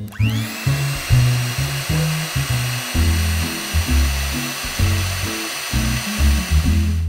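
Electric mixer grinder motor grinding dried herbs and spices to a powder. It spins up with a quickly rising whine, runs at a steady high speed, and stops at the end. Background music plays underneath.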